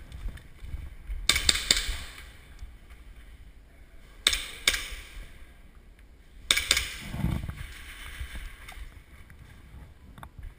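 Three short bursts of airsoft gunfire, each a quick run of sharp snapping shots: about a second in, around four seconds in, and around six and a half seconds in.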